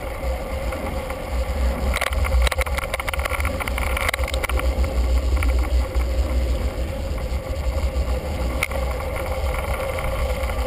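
Wind buffeting the microphone of a bike-mounted camera on a moving bicycle: a steady, fluttering low rumble, with a few sharp clicks and rattles.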